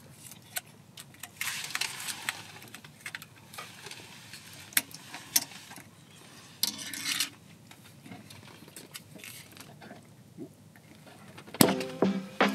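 A champagne bottle being opened by hand: crinkling rustles and small metallic clicks as the cork is worked out, with short hissing rustles about two seconds and seven seconds in. Music starts near the end.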